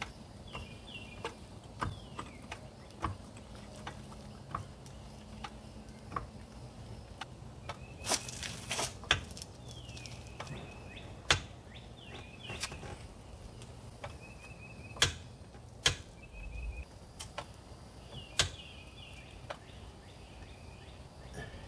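Red hydraulic floor jack being pumped by its long handle to lift a boat, giving a sharp click or knock every second or two, with a louder rasping burst about eight seconds in. Birds chirp in the background.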